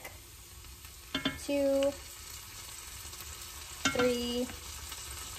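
Chopped onions frying with a steady sizzle in a cast-iron skillet while minced garlic is spooned in from a glass jar and stirred. Two short steady tones stand out over the sizzle, about a second in and about four seconds in.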